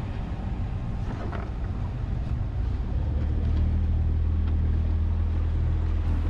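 Honda outboard motor running at low speed, driving a small boat; its steady low hum grows a little stronger about three seconds in.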